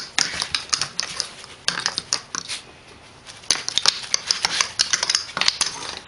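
Scuffling and quick irregular clicks of a kitten's paws and claws on a wooden floor as it tussles with a cloth hand puppet, with a short lull about halfway through.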